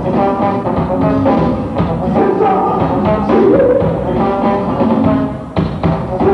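Live band playing loudly, with drum kit and held melodic notes and chords, and a brief break about five and a half seconds in before the band comes back in together.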